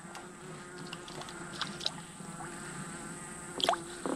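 A flying insect buzzing in a steady hum, with a few short clicks near the end.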